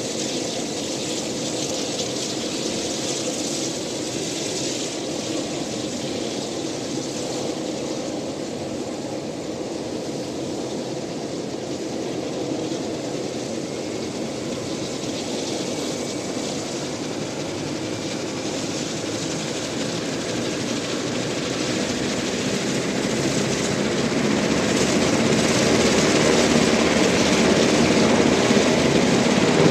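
UH-60 Black Hawk helicopter running on the ground with its twin turboshaft engines and rotors turning, a steady engine and rotor noise that grows louder over the last third.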